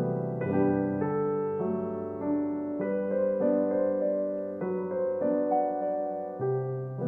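Background music: a slow, gentle piano melody with sustained notes and chords changing about every half second.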